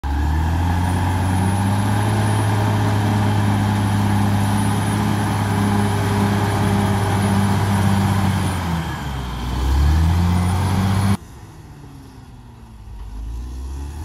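CAT D6R XL crawler bulldozer's diesel engine running hard under load up close, its pitch dipping about nine seconds in and picking back up. After about eleven seconds the sound cuts suddenly to the dozer heard further off and much quieter, its engine sagging and then recovering.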